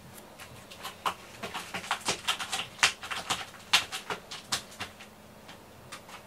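Irregular quick scratching and crackling clicks as a hand scratches a cat lying in a cardboard box, rubbing against its fur and the cardboard. The clicks come thick through the middle, loudest around three and four seconds in, and thin out near the end.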